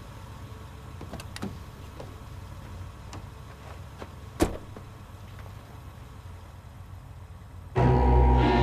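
Plymouth Valiant's engine idling low, with a few light clicks as the driver's door is worked and one sharp knock about four and a half seconds in. Near the end, ominous low-string music starts abruptly and loudly.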